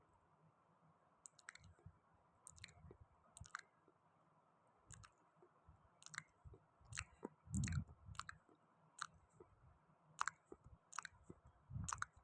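Faint, irregular eating sounds: someone chewing, with soft wet mouth clicks about once or twice a second.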